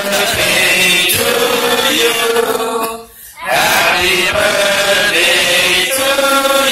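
Singing in long held phrases, with a short break about three seconds in.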